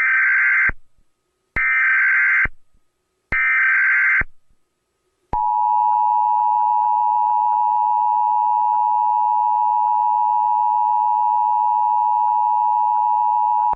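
Emergency Alert System test broadcast: three short bursts of the SAME digital header tones, each just under a second long, then the steady two-tone EAS attention signal held for about eight seconds.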